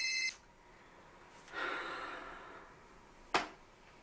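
A mobile phone's electronic ringtone cuts off just after the start, then a woman's breathy exhale, and a single sharp click near the end.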